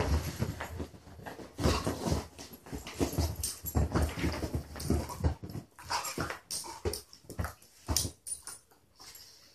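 Two dogs, a beagle and a smaller black-and-white dog, play-fighting on a couch: a busy run of scuffling and thumps against the cushions, with short dog whimpering sounds mixed in. It quietens in the last second.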